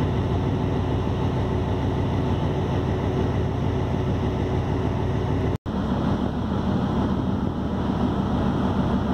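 Steady wind rumble on the microphone over the running noise of a passenger ship under way, heard on its open deck. It drops out briefly a little past halfway, where the recording cuts.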